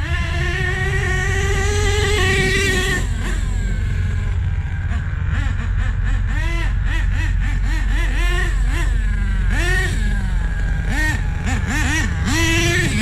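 Nitro RC truck engine revving: a long rise in pitch held for a few seconds, then repeated quick throttle blips. The engine idles low between revs, which the owner puts down to a lean tune in the cold.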